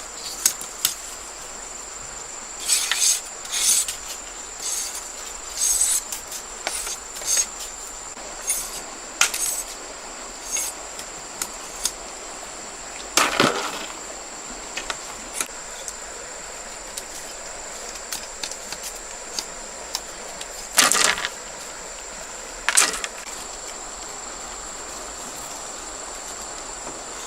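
Scattered knocks and short cracks of bamboo being worked by hand, the loudest about halfway through and about three quarters of the way in. Under them runs a steady high-pitched insect drone.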